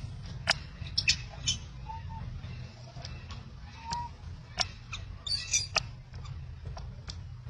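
Scattered short, high squeaks and sharp clicks, with a couple of brief arched chirps, from a long-tailed macaque infant wanting to nurse, over a steady low rumble.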